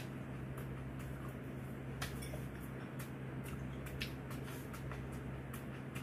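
Soft eating sounds: chewing, with scattered small clicks and taps, over a steady low hum.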